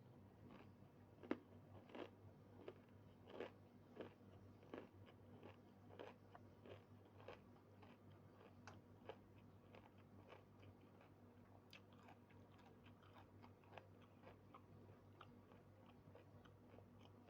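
Faint close-up chewing and biting, with short crunchy mouth clicks about once a second for the first few seconds, then softer and more frequent.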